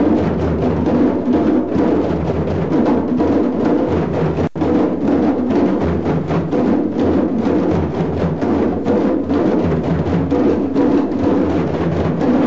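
A group of African drums played together in a steady, dense rhythm, with a split-second dropout about four and a half seconds in.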